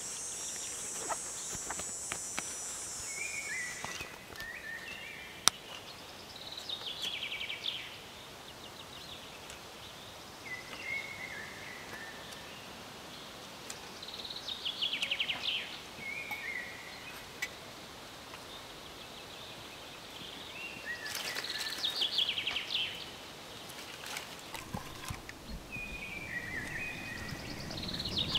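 Woodland ambience: a songbird repeats a short phrase of stepped notes and a falling trill every several seconds. A high steady hiss stops a few seconds in, there is one sharp click about five seconds in, and a louder stretch of noise comes near the end.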